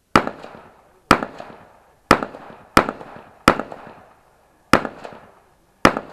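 Rifle shots at an IPSC rifle stage: seven sharp shots fired about a second apart, with a slightly longer pause before the sixth, each trailing off in an echo off the range.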